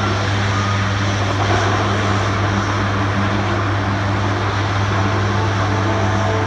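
Turboprop engines of a C-130 Hercules transport running with a steady, loud propeller drone.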